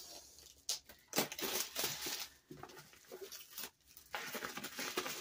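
Clear plastic shrink wrap crinkling and tearing as it is pulled off a long cardboard box, in several short spells with brief pauses between.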